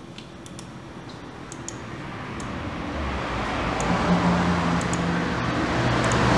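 A motor vehicle approaching, its engine and road noise growing steadily louder, with a low engine hum coming up in the second half.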